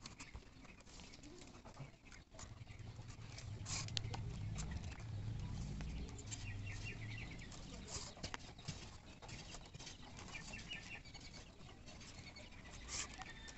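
Bamboo splints clicking and rattling against each other as a plastic weaving strip is threaded and pulled through a bamboo frame, in many short, light knocks.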